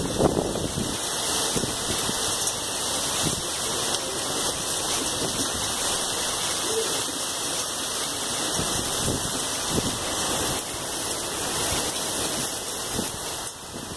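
Heavy rain pouring down in a strong storm, a steady hiss of downpour, with wind buffeting the microphone in the first second.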